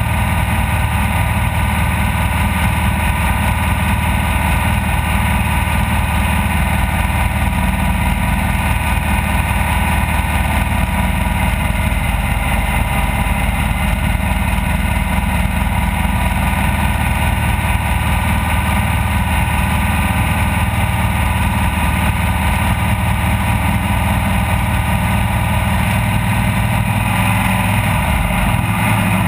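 Off-road race vehicle's engine running loud and steady, with only a slight change in pitch near the end.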